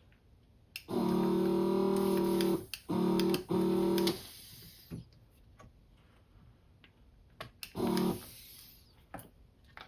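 Electric desoldering tool's vacuum pump buzzing in bursts as solder is sucked off a capacitor's leads on a circuit board: a long burst, two short ones, then a brief one near the end, with small clicks in between.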